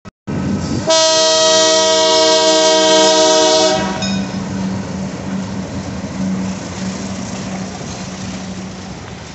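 Arkansas & Missouri Railroad diesel locomotive sounding one long multi-note horn blast of about three seconds for the road crossing. Then the steady drone of its diesel engine and the rumble of the freight train rolling past, slowly fading as the hopper cars go by.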